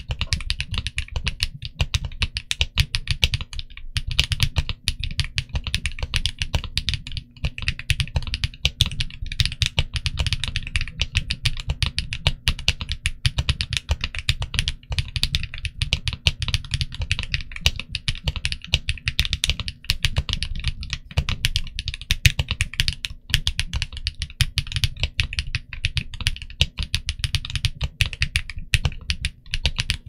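Continuous fast typing on a TG67V3 mechanical keyboard with Kinetic Labs Latte linear switches and Chalk cherry-profile dye-sub PBT keycaps: a dense, unbroken stream of keystrokes.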